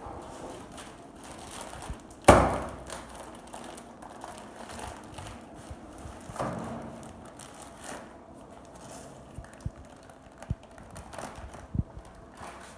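Plastic spaghetti packet crinkling as it is handled and opened, with one loud sharp knock about two seconds in. Later come short clicks and ticks as the dry spaghetti is tipped into the pot of boiling water.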